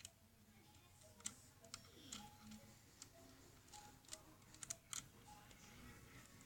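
Faint, scattered light clicks and ticks of a screwdriver and small screws being handled while the laptop's case screws are put back in.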